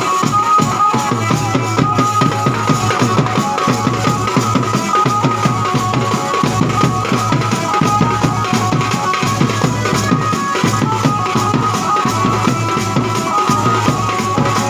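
Band baja music: loud, fast, dense drumming with a steady, sustained high melody line on top.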